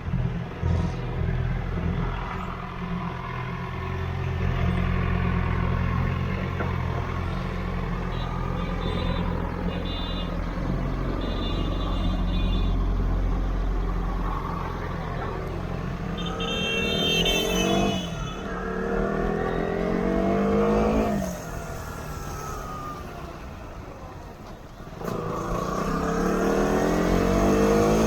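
Motorcycle engine heard through an action camera's built-in microphone: a low, steady rumble for the first half, then the pitch climbs in two rising sweeps as it accelerates through the gears. It eases off about three quarters in and climbs again near the end.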